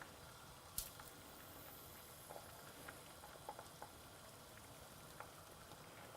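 Near silence: a pot of ginger and lime water simmering faintly, with a few light clicks of a spoon as honey is added, the clearest about a second in.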